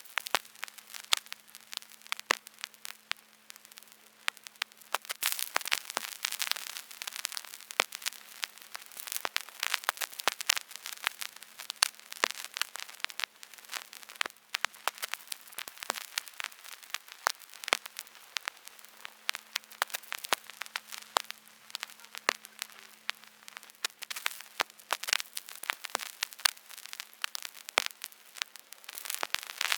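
Vinyl record surface noise: a steady hiss with dense, irregular crackles and pops, over a faint steady hum.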